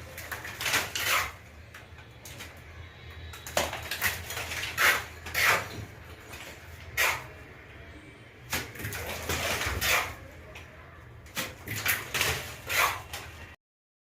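Hand tools scraping and knocking on fresh cement during ceiling repair, in short irregular strokes, as the material is pressed tight against the wire mesh. The sound cuts off suddenly near the end.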